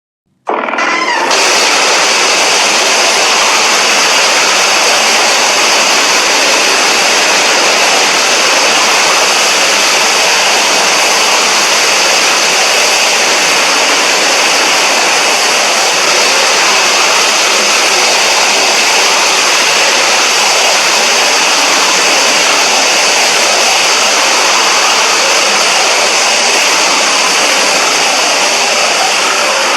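Gravity beam sound effect for the monster Dragon-Dorah: a loud, steady rushing energy-beam noise with no pitch to it. It starts abruptly just after a brief silence, holds unchanged, and fades out near the end.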